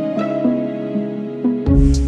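Background music: a soft melody of held notes, joined by a beat and deep bass about a second and a half in.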